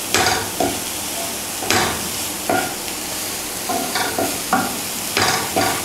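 Chopped banana flower and onion sizzling in a non-stick frying pan while a wooden spatula stirs and scrapes through them, repeated scraping strokes at an uneven pace over a steady frying hiss.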